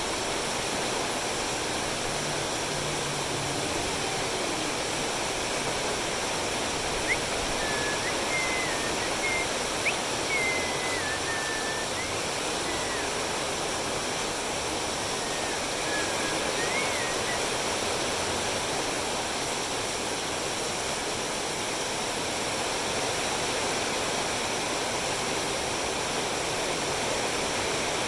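Heavy rain falling, a steady hiss that runs without letting up. A few faint high chirps come through it in the middle, with a couple of small clicks.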